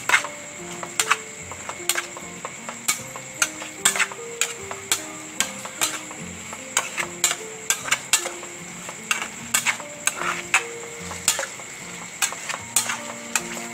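Metal spatula knocking and scraping against a pan while stirring tofu in sauce, with irregular sharp clicks about twice a second. A simple melody of soft notes plays underneath.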